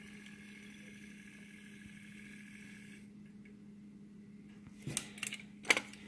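Small DC loading motor of a Sony DVCAM tape deck whining steadily as it is driven directly from an external voltage, stopping about halfway through. A few sharp plastic clicks and knocks of the loading mechanism being handled follow near the end.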